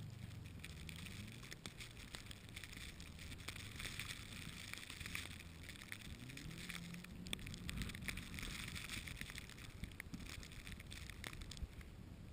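Subaru Legacy GT's turbocharged flat-four engine revving up and down as the car is driven around in snow, its pitch climbing again about six seconds in, over a steady hiss with small crackles.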